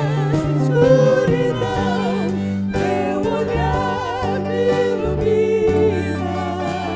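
Christian worship song with vocals held and swelling over guitar and bass accompaniment, with a steady beat.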